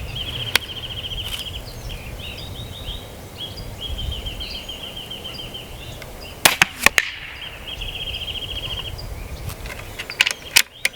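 Benjamin Marauder .22 PCP air pistol firing once about six and a half seconds in, a sharp shot followed by a few quick clicks, with more short clicks near the end. A high pulsing trill repeats in the background.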